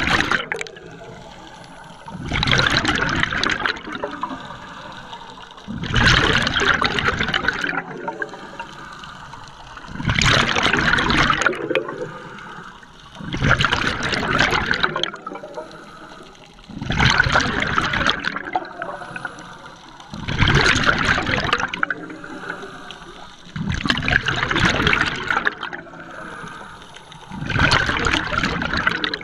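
Scuba diver's exhaled bubbles gurgling out of the regulator underwater in regular bursts, about every three and a half seconds, with the steady rhythm of the diver's breathing and quieter stretches between.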